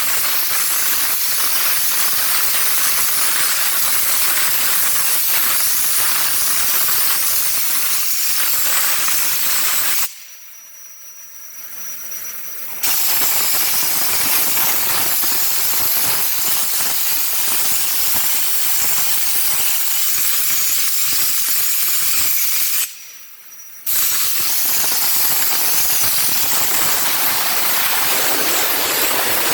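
Compressed-air spray gun hissing steadily as it sprays underbody anti-rust coating, cutting off sharply twice when the trigger is let go: once for about three seconds and later for about a second.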